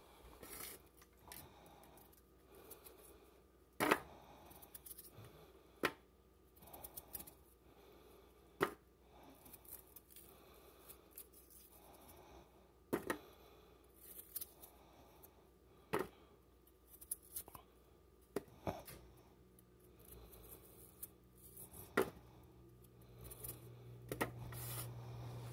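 Raw potato being cut into chunks by hand with a small knife over a plastic bowl: a sharp click every two to three seconds as the blade cuts through and pieces drop into the bowl, with quieter scraping between. A low hum comes in about three-quarters of the way through.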